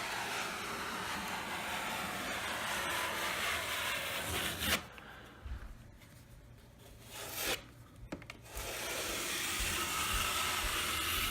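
Steel drywall taping knife scraping along paper tape embedded in joint compound, squeezing the mud out from under the tape. Two long strokes, one in the first half and another near the end, with a short scrape between.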